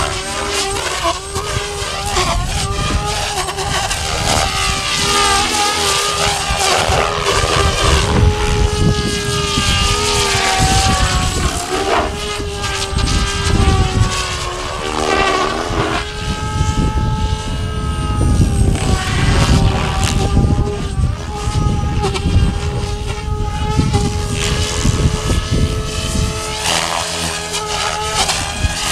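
SAB Goblin radio-controlled helicopter flying 3D aerobatics: its rotors whine and swish, the pitch bending up and down and the loudness surging as the blades load and unload through each manoeuvre.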